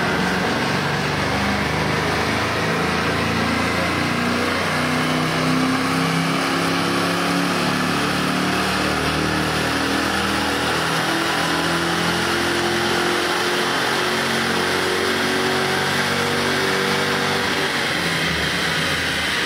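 Car engine running steadily above idle, its pitch creeping slowly upward through the middle of the stretch.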